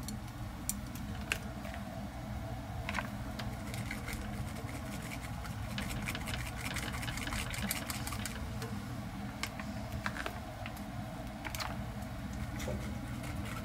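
Miso being dissolved into a pot of simmering miso-soup broth: a utensil scraping and clicking against the pot in scattered sharp ticks, thickest through the middle, over a steady low hum.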